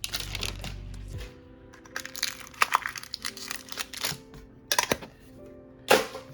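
Plastic packaging of a Pokémon trading-card mini tin crinkling and crackling as it is handled and torn open, with a run of sharp crackles, the loudest near the end, over background music.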